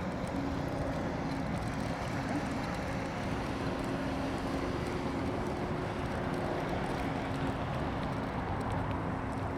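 Steady rumble of vehicle traffic, with a constant low hum running through it.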